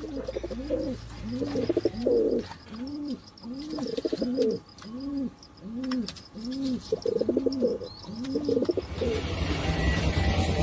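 A pigeon cooing over and over, a steady run of rising-and-falling coos a little more than one a second. Near the end, the coos give way to the running of an engine.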